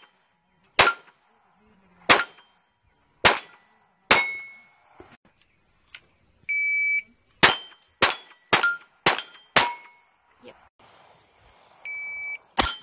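A .22 rimfire pistol firing at steel plates, with a short ring from the steel after each shot. First come four spaced shots. Then a shot-timer beep starts a fast string of five shots about half a second apart, and another timer beep sounds near the end, all over a faint steady high chirping of insects.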